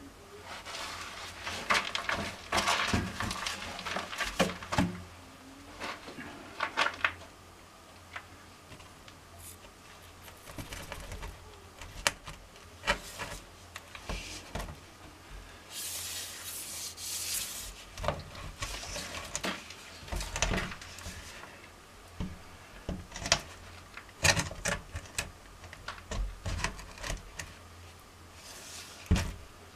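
A PVC window frame being handled and fitted into a concrete wall opening: irregular knocks, clicks and scrapes, busiest in the first few seconds, with a longer scraping rub about halfway through.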